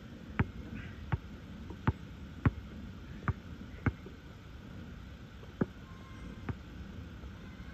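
Basketball bouncing on an outdoor asphalt court as it is dribbled: six sharp bounces about two-thirds of a second apart over the first four seconds, then two more, further apart.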